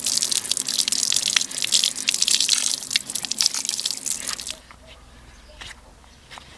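Water from an outdoor tap pours and splashes over a metal spoon lure held in gloved hands. The water stops about four and a half seconds in, leaving a few faint clicks.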